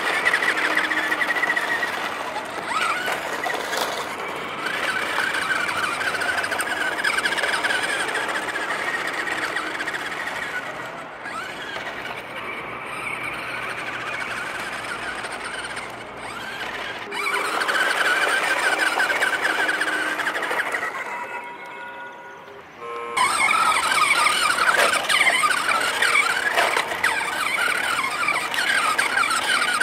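Plastic toy vehicle mechanism whirring and squealing continuously. It drops away about two-thirds of the way through, then comes back louder.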